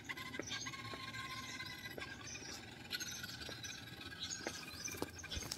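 Small electric motor of a radio-controlled model car whining steadily as the car drives along, with faint footsteps on pavement about once a second.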